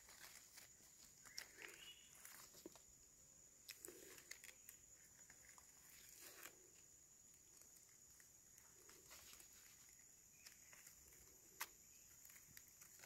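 Near silence: faint rustles and soft steps in dry leaf litter, a few light clicks, and a faint steady high-pitched tone throughout.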